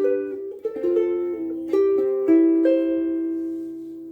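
Soprano ukulele playing a short run of chords, the last chord left ringing and slowly dying away.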